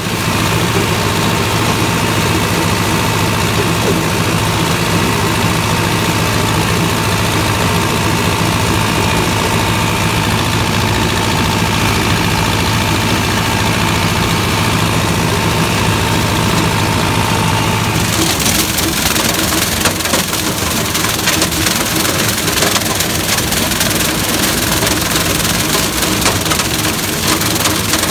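John Deere tractor engine running steadily under load while it drives a PTO stalk chopper through dry cornstalks. About 18 seconds in the sound turns rougher and noisier, with the chopper's clatter of shredding stalks taking over from the even engine note.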